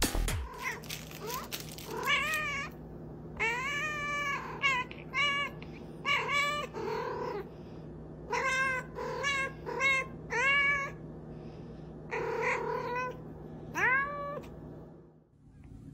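A domestic cat meowing over and over: many short calls in quick runs, each rising and then falling in pitch.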